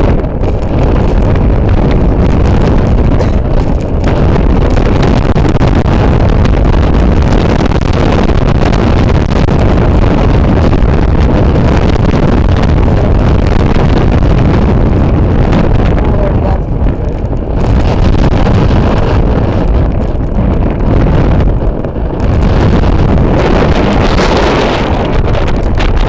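Storm wind of about 40–45 mph buffeting the microphone in a loud, steady low rumble, with gusts rushing through tall grass and trees. The gusts ease for a moment twice, around two-thirds of the way through and again a little later.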